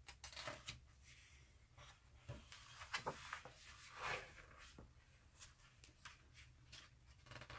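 Faint rustling and soft taps of glossy book pages being handled and turned, with a couple of louder paper swishes about three and four seconds in.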